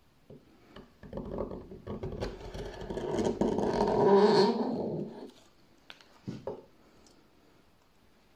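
A hand-forged swan neck gouge pushed by hand through wood, lifting a shaving in one long scraping cut of about four seconds that grows louder toward its end. A few light taps follow.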